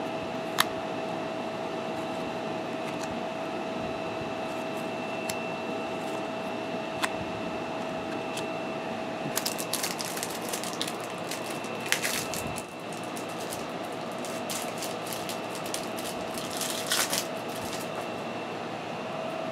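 Paper trading cards being handled and shuffled: light clicks and crisp rustles, busiest about ten seconds in and again near the end, over a steady background hum with a thin constant whine.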